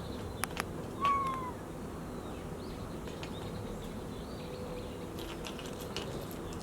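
A cat gives one short meow about a second in, falling slightly in pitch, over a faint steady hum and a couple of brief clicks.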